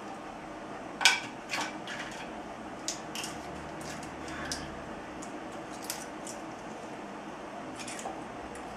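Scattered clinks and knocks of a kitchen knife, plate and razor-clam shells being handled as the clams are shelled and cut up, the loudest about a second in, over a steady background noise.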